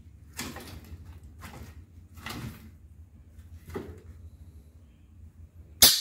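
Dog sniffing around stacked wooden boards, hunting for a scent: four short noisy snuffles a second or so apart, then a sharp loud knock near the end.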